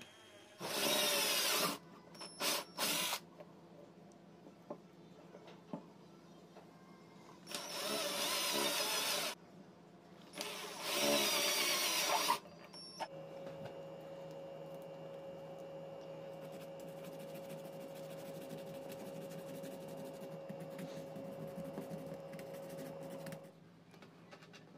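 Cordless drill boring through a small plastic part on a wooden block, in several short loud bursts. After that comes a quieter, steady machine whir holding one even tone for about ten seconds, which then stops.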